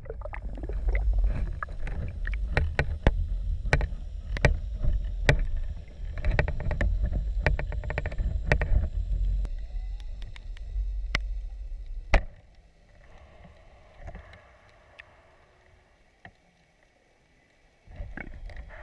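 Underwater sound through a GoPro's waterproof housing inside a sinking crab trap: a heavy low rumble of water with many sharp clicks and knocks from the trap's frame and line. About twelve seconds in a loud knock comes as the trap reaches the sandy bottom, after which it is much quieter.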